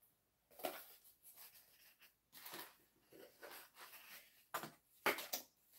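Pieces of cardboard being handled and rubbed together: a run of short, noisy scraping strokes, the loudest about a second in and again near the end.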